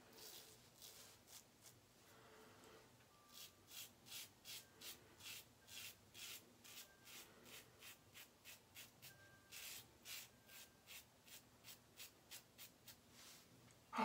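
Blackland Sabre safety razor scraping through lather and stubble on the neck: faint, quick, short rasping strokes repeated at an even pace, about two to three a second.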